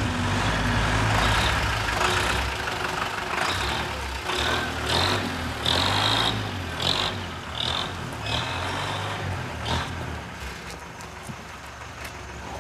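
Bus engine running, with several short high squeals over it in the middle.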